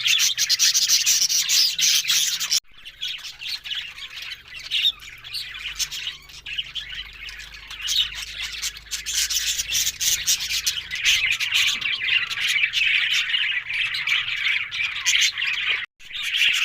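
Budgerigars chattering and warbling continuously. The chatter drops off sharply about two and a half seconds in and builds again from about eight seconds, with a brief break near the end.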